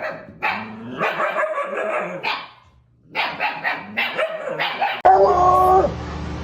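A dog barking and yipping in two runs of calls, with a short pause between them. Music starts abruptly about five seconds in.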